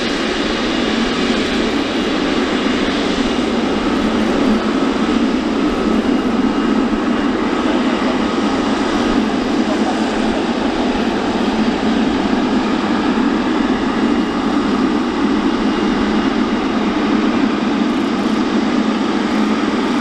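Boeing 777F's twin GE90 turbofan engines at taxi power as the freighter taxis past and onto the runway. The jet noise is a steady rush with a faint whine.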